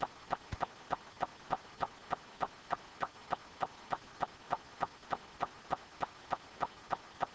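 Steady, rapid ticking: short, even clicks at about three a second, keeping a regular beat throughout.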